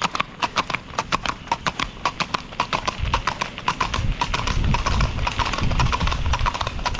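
Horse hooves clip-clopping on a paved road: a quick, uneven run of hoofbeats from two ridden horses moving at a brisk pace. A low rumble lies under the hoofbeats from about three seconds in.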